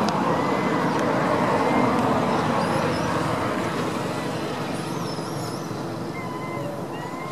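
Steady rushing background noise that slowly fades, with a few faint, short high chirps above it.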